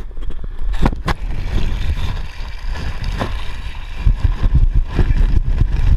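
A body sliding on a wet plastic slip 'n slide, water splashing and rushing, with wind and water buffeting the hand-held action camera's microphone. Two sharp knocks about a second in; the rumbling and splashing grows louder about four seconds in.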